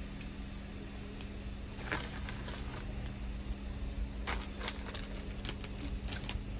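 Plastic bag of shredded mozzarella crinkling a few times as cheese is shaken and pinched out of it, over a steady low hum.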